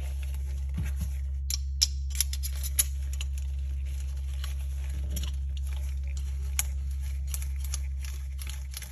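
Light metallic clicks and taps as the recoil spring, two-piece guide rod and slide of a Platypus 1911-style pistol are handled and fitted together by hand. A few sharper clicks come about two seconds in and again near seven seconds, over a steady low hum.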